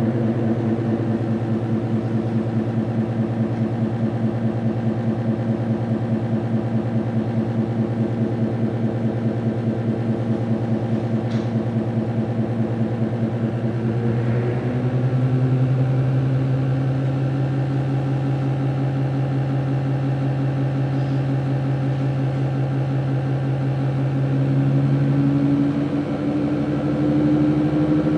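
ReGen-X pulsed DC stepper motor running with a steady, rapidly pulsing hum. Its pitch shifts about halfway through and rises again near the end as the motor is sped up.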